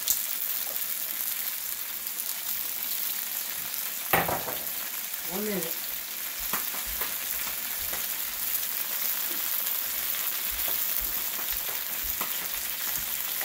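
Chicken pieces and crushed garlic sizzling in hot oil in a nonstick wok, a steady crackle with scattered pops. There is a single knock about four seconds in.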